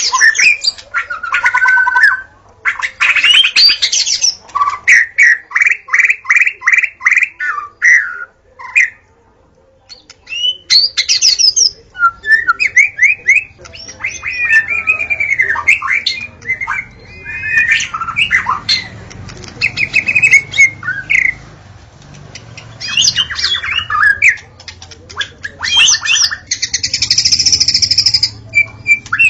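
Wild white-rumped shama singing a long, varied song: quick runs of repeated notes, gliding whistled phrases and harsh buzzy calls, with a short pause about nine seconds in.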